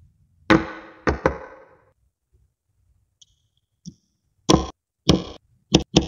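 Rings of small magnetic balls snapping onto a stacked cylinder of them, sharp clacks with a short rattling tail: three near the start, a couple of faint ticks in between, then four more in quick succession near the end.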